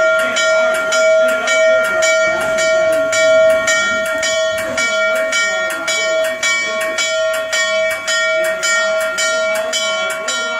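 Norfolk & Western 611 steam locomotive's bell ringing steadily in an even rhythm of strokes, the warning that the engine is moving through the station.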